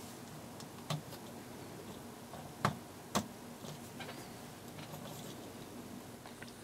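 Clear acrylic model parts clicking and tapping as they are handled and fitted together by hand: a click about a second in, two sharper clicks about two and a half and three seconds in, then a few lighter ticks.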